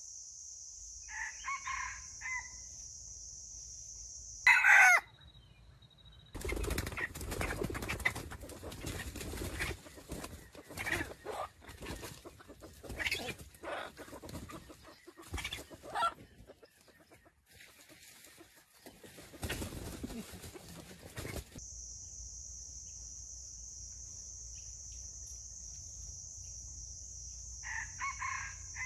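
Red junglefowl rooster clucking, then giving one brief loud call, followed by about fifteen seconds of scuffling and wing-flapping in dry bamboo leaves. A high, steady insect drone stops with the loud call and comes back near the end, when the clucking starts again.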